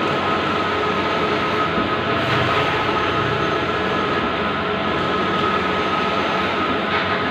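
Bluewin large-format outdoor digital printer running: a steady mechanical whir and hiss with a constant high hum.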